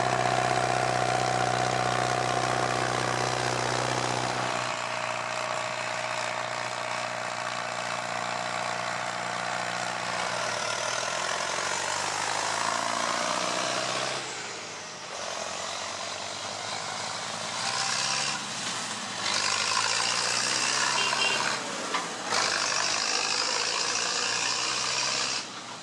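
Zetor 10145 tractor's diesel engine running steadily, then shifting in pitch as it drives past about halfway through, followed by the rumble and hiss of the passing machinery.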